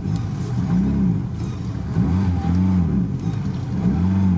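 Lada Niva's four-cylinder petrol engine, heard from inside the cabin, revved up and down in about five short bursts as the car, lacking low-range gearing, tries to pull out of a deep muddy rut.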